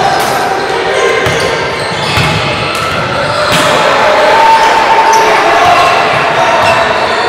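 Basketball bouncing on a gym court during play, with voices echoing in the large hall.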